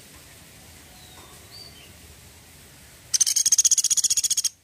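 Small woodpecker (pelatuk sampit) giving its rapid trilling 'tembakan' call: a fast, high, even rattle of about fifteen notes a second. It starts about three seconds in, lasts about a second and a half, and cuts off suddenly. Faint high chirps from other birds come before it.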